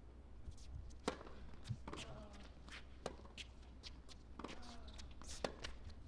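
Tennis ball bounced a few times on the hard court before a serve. About four and a half seconds in comes the sharp crack of the racket striking the serve, and a second later the louder crack of the return, with faint crowd voices.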